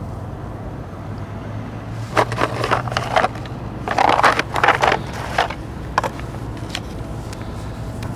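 A cardboard box of match crackers being handled and opened: two bunches of scraping and rustling, the second louder, then a single click, over a steady low hum.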